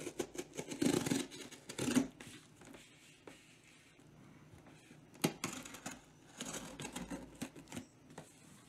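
Craft knife slicing through packing tape and plastic wrap on a cardboard box, with crinkling plastic and scraping against the cardboard in quick, irregular bursts; near the end it cuts into bubble wrap. The unboxing is played sped up.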